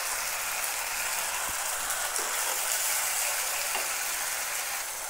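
Onion and spice masala frying in hot oil in a kadai as tomato paste is poured in: a steady sizzling hiss.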